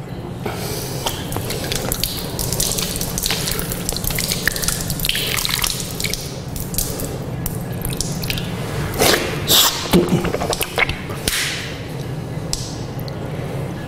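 Tap water running into a basin while hands are rubbed and rinsed under the stream, with irregular splashing; a few louder splashes come about two-thirds of the way in.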